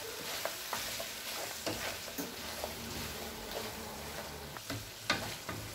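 Wooden spatula stirring mutton pieces frying in butter in a nonstick pan, over a steady sizzle, with scattered light scrapes and taps of the spatula on the pan and a sharper tap about five seconds in.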